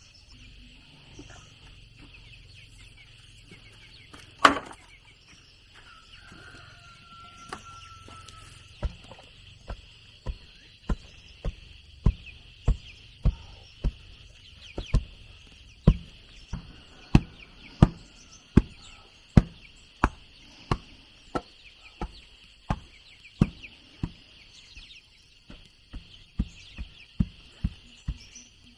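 Repeated blows of a tool on wood, about one and a half a second, starting about nine seconds in, with a single heavier knock a few seconds earlier. A steady high hiss runs underneath.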